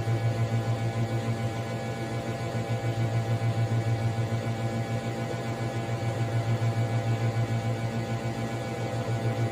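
Nissan Patrol's six-cylinder engine idling: a steady low hum.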